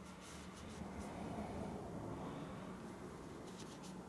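Faint scratchy handling sounds with a few light clicks: a folding knife's small parts being handled and fitted together during reassembly.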